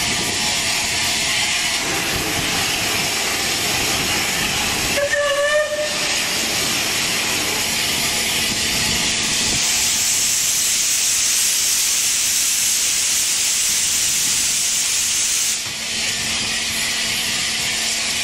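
Steam hissing steadily from beneath a standing heritage train, growing louder and sharper for several seconds in the middle before dropping back. A short pitched tone sounds briefly about five seconds in.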